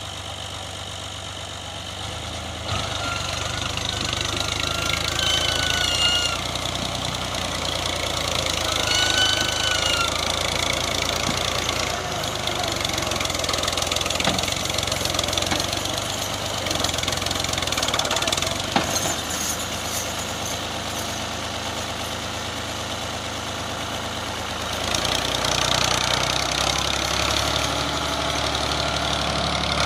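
Al-Ghazi farm tractor's diesel engine working hard to pull a trolley heavily loaded with sugarcane. It gets louder a few seconds in, eases off midway and rises again near the end.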